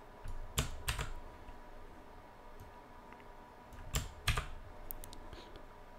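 Computer keyboard keystrokes: a couple of sharp key clicks about half a second in, another pair around four seconds in, then a few fainter clicks.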